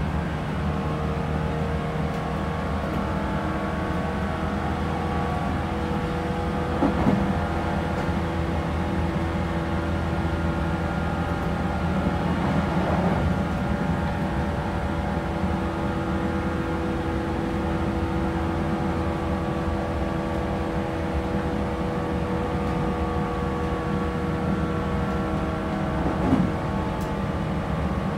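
117 series electric train running at steady speed, heard from inside the passenger car: a steady whine from its traction motors and gears over the rumble of wheels on rail, with a few brief knocks.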